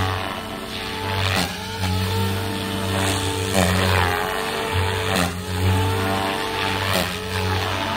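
Goblin 500 Sport electric RC helicopter in aerobatic flight: a steady rotor drone whose pitch sags briefly under load, with short surges of blade noise every second or two as the rotor loads up through the manoeuvres.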